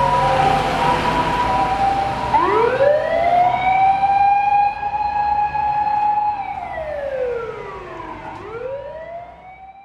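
Japanese fire command vehicle's electronic siren sounding for an emergency run: a wail that rises about two seconds in, holds, falls, then rises again, growing fainter toward the end. Two steady high siren tones sound alongside it at first.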